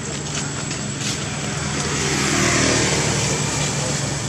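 A motor vehicle passing by, its engine and road noise swelling to a peak about halfway through and then easing off, over a steady low hum.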